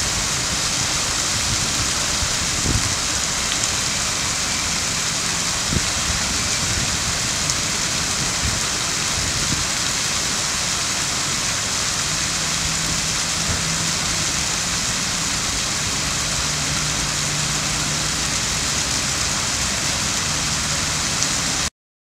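Fountain water splashing and pouring over a stone ledge in a steady hiss, cutting off abruptly near the end.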